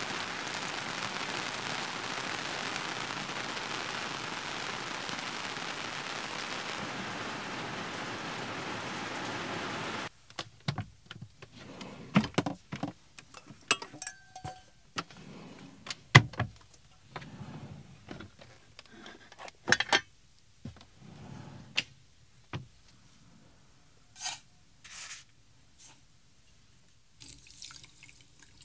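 Steady rain falling on a campervan's awning for about ten seconds, stopping abruptly. Then scattered knocks and clinks as a saucepan is taken from a drawer and set on the stove, and near the end water is poured from a plastic bottle into the pot.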